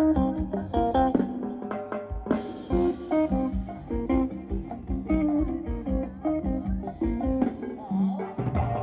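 Live band playing upbeat Thai ramwong dance music, with electric guitar over a drum kit keeping a steady beat.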